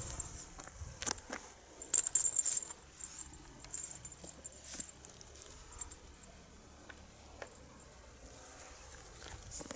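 Light clicks and rattles from a feather wand cat toy being swished about, with a burst of sharp, jingling clicks about two seconds in.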